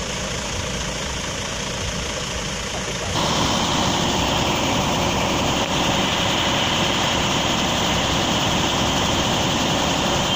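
Heavy diesel engines of a Mercedes-Benz coach and a Mitsubishi truck running at idle, close by and steady. The sound gets louder and brighter about three seconds in, then holds.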